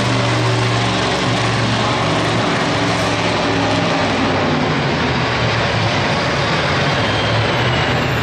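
Pickup tow truck's engine running at full throttle, steady and loud, as it drags a weight-transfer pulling sled down the track under heavy load.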